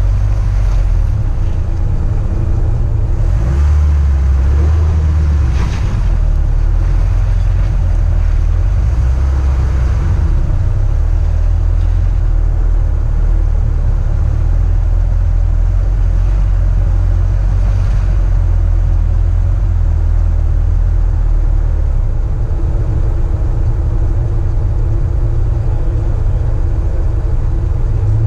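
Car driving with its engine running and a heavy, continuous low rumble that shifts in level every few seconds.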